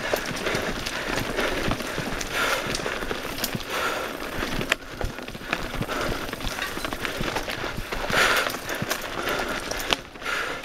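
Mountain bike riding over a rocky dirt singletrack: tyres crunching on gravel and loose stones, with a constant clatter of small knocks and rattles as the bike jolts over bumps.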